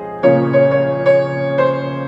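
Soft instrumental background music: slow piano melody notes struck about every half second over a held chord that enters just after the start.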